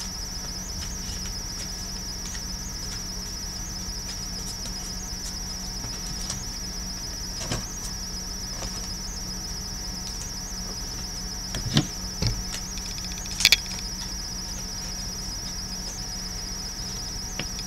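Crickets chirping as a continuous high, fast-pulsing trill. A few short knocks and clicks come in the second half.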